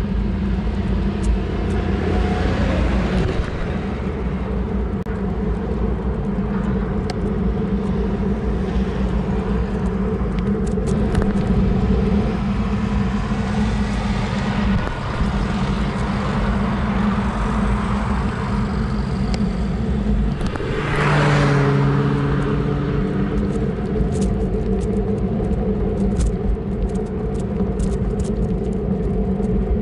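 Road traffic passing close by, with a steady engine hum throughout. One vehicle passes loudly about twenty-one seconds in.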